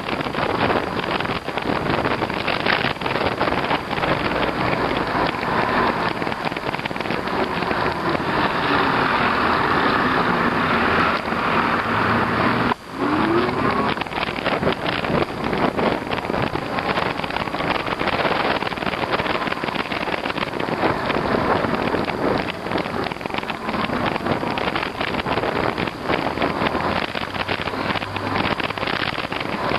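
Steady rushing wind noise on the microphone of a moving e-bike, mixed with tyre and road noise. The sound drops out for a moment about halfway through.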